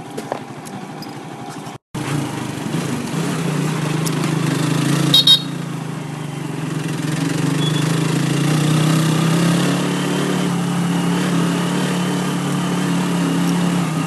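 Motorcycle engine of a tricycle (motorcycle with sidecar) running steadily under way, heard from inside the sidecar. The sound breaks off briefly about two seconds in, and a short high-pitched squeak comes about five seconds in.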